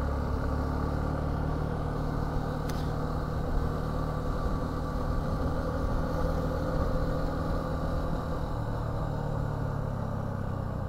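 Suzuki V-Strom 250 motorcycle engine running steadily on the move, its note shifting slightly about eight seconds in. One brief click about three seconds in.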